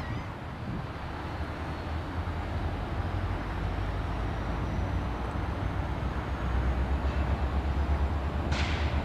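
CSX GP40-2 diesel locomotive's EMD 16-cylinder engine running as it passes, a steady low rumble that grows louder with a throbbing beat past the middle. A short, sharp hiss comes near the end.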